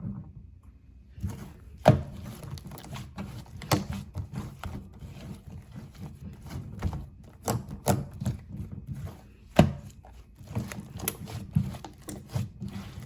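Hands squishing and poking a soft slime, making irregular sticky clicks and pops, with a handful of louder snaps.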